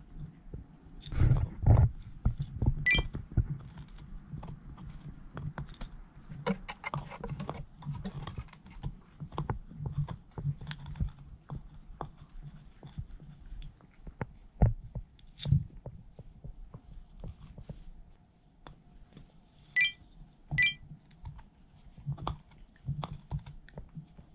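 A Shiba–Beagle mix dog gnawing on a stalk of green bamboo: irregular crunches, sharp clicks and dull knocks of teeth on the hard stalk, in bursts with short lulls between.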